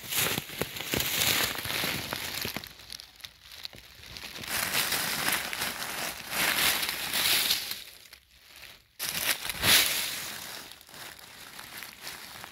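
Dry fallen beech leaves rustling and crackling in irregular bursts as a hand pushes through them, with a brief lull a little after two-thirds through, then a sharp crackle.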